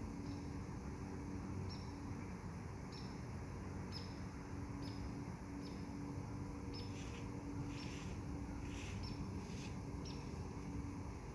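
A bird's short high chirps, repeated about once a second, each dipping slightly in pitch, over a steady low hum.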